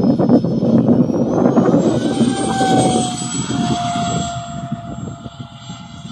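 Electric ducted fan of a large RC jet model (90 mm, 11-blade Vasafan on 12S) flying past: a rushing whine whose pitch drops slightly about two seconds in as it passes, then fades as it flies away.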